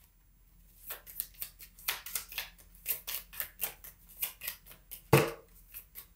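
A deck of tarot cards being shuffled by hand: a quick run of short card clicks starting about a second in, with one louder thump about five seconds in.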